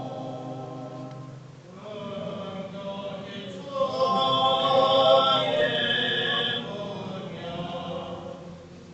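Armenian church liturgical chant sung in long held notes by a choir, with one voice rising louder about four seconds in and holding for a couple of seconds before the singing eases back.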